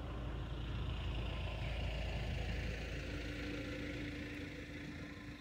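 Motor vehicle engine running nearby with a steady low rumble and a hum, fading a little near the end.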